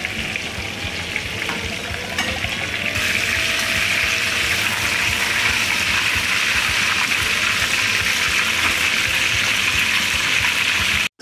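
Tahu bakso (meatball-stuffed tofu) deep-frying in a pan of hot oil: a steady sizzling hiss, which grows louder and brighter about three seconds in.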